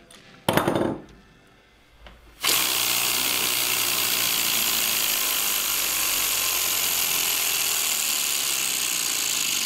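3D-printed plastic oscillating air engine running fast on compressed air: from about two and a half seconds in, a steady loud hiss of exhausting air with a fast mechanical buzz. A brief loud burst comes about half a second in, before it starts.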